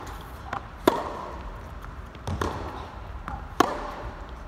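Tennis rally on an indoor court: three loud, sharp racket strikes on the ball about a second and a half apart, with softer ball bounces between them, each ringing briefly in the hall.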